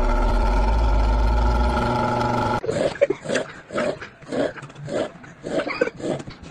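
A loud, steady pitched drone with a deep rumble that cuts off abruptly about two and a half seconds in. Then very rapid snoring, short snores coming about two to three a second.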